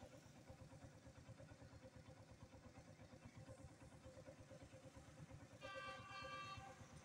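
Quiet trackside ambience with a faint low rumble, then a horn sounds once for about a second near the end.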